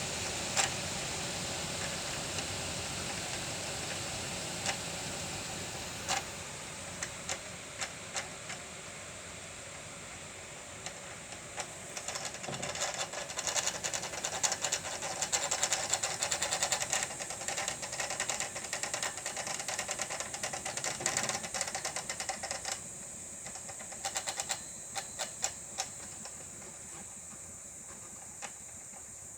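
Front wheel of a Yamaha TMAX 500 scooter spinning freely on its bearings and slowly running down, with a steady hiss and high whine, its speed-sensor drive just refitted and greased. Irregular ticks come and go through the middle and later part: the howl is gone, but an intermittent noise still slips through somewhere.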